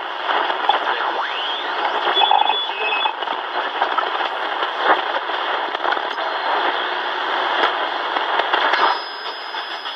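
Static hiss from a Hitachi Hi-Phonic WH-888R portable radio's speaker on the shortwave band, with no station clearly coming through. A thin whistle rises in pitch just over a second in.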